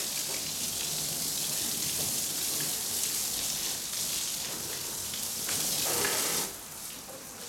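Garden hose spray hissing as it rinses a car's body and splashes onto wet pavement; it swells briefly, then cuts off abruptly near the end.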